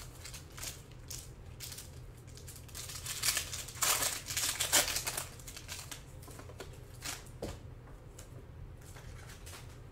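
Foil wrapper of a Panini Prizm basketball card pack being crinkled and torn open, with the loudest rustling a few seconds in as the cards are pulled out, and a few lighter crinkles before and after.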